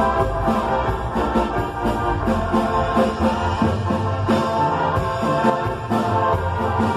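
Live dance-band music with keyboard over a steady beat, played loud through a sound system.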